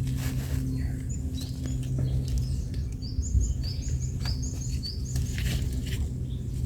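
Small birds chirping in a quick run of short, rising notes over a steady low hum, with scattered light taps and rustles.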